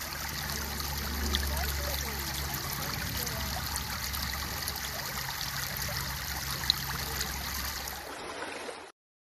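Shallow creek water running steadily over a gravel riffle, a continuous rushing hiss with a low rumble beneath it. There is one sharp click about two-thirds of the way through, and the sound cuts off suddenly near the end.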